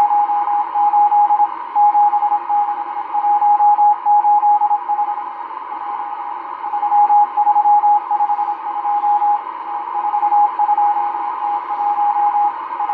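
Morse code from the M12 numbers station: a single tone keyed on and off in dots and dashes, sending number groups over steady shortwave static hiss, received on a Realistic DX-394 shortwave receiver. The keying pauses briefly around the middle.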